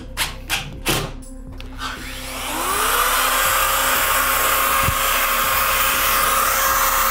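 A few short bursts as a cordless drill drives drywall screws into the ceiling. About two and a half seconds in, a corded drywall cut-out tool (spiral saw) starts up: its motor whines up to speed and then runs at a steady pitch, not yet cutting.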